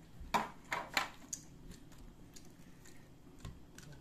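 Hands picking chocolate chips out of a small plastic cup and setting them on brownies in paper liners: three sharp clicks and light rattles in the first second, then a few fainter ticks.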